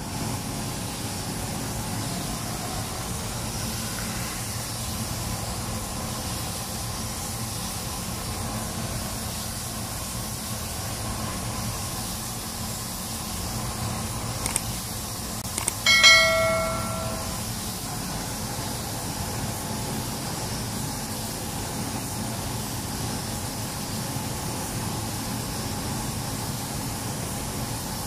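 Steady hiss of a compressed-air paint spray gun spraying, with a low steady rumble beneath it. About halfway through, a short bell-like ding rings out and fades within about a second.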